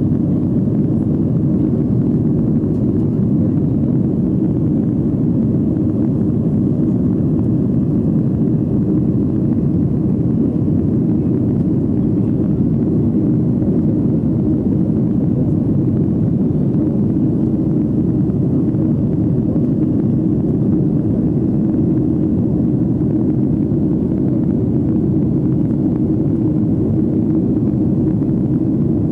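Cabin noise inside a Boeing 757-200 climbing out after takeoff: a steady, low rush of jet engines and airflow, unchanging throughout.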